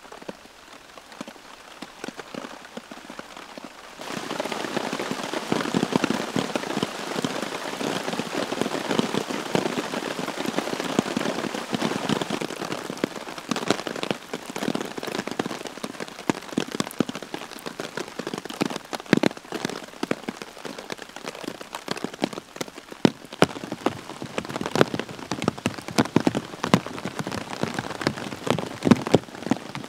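Heavy rain falling, with many separate drops striking close by over a steady hiss; it gets suddenly louder about four seconds in.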